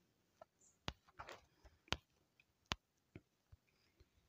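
Quiet, irregular sharp clicks against near silence: a few clear ones roughly a second apart, with fainter ticks and a short soft rustle between them.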